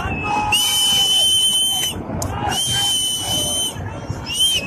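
Repeated long whistle blasts at one steady high pitch, each lasting over a second, about one every two seconds, over a low rushing roar of floodwater.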